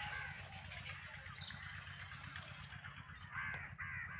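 Short animal calls, a few at the start and three in quick succession near the end, over a steady low hum.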